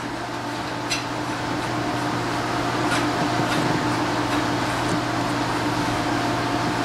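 Steady mechanical hum with hiss, like a fan running, with a couple of faint clicks about one and three seconds in.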